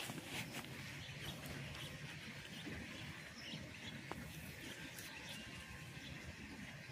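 Faint rustling and small scattered clicks of hands digging through potting soil in a bucket, feeling for potatoes.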